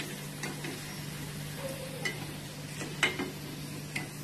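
A perforated steel skimmer clinks against the kadai a few times, the strongest about three seconds in, as puffed fried puris are lifted out of hot oil, over a faint sizzle of the oil and a steady low hum.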